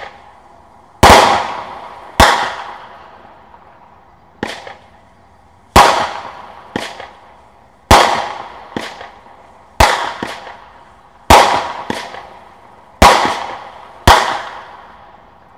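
Brothers Pyrotechnics 'In the Mix' nine-shot aerial cake firing: about a dozen sharp bangs, roughly one a second, each trailing away. The shells lift on gold tails and break into silver and gold glitter.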